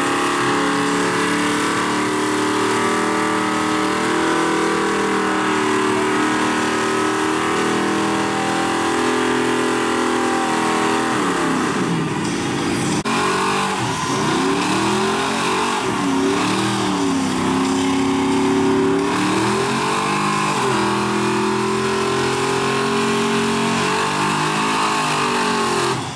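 Two car burnouts. A Chevy C10 pickup's engine is held at high revs while its rear tyres spin and squeal. Then, about halfway through, a second-generation Chevrolet Camaro's engine revs up and down over and over as its spinning rear tyres squeal.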